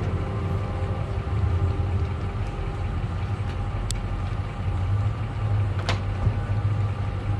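Pickup truck engine idling steadily with a low hum, with two short sharp clicks about four and six seconds in, as the boat trailer's winch and bow strap are handled.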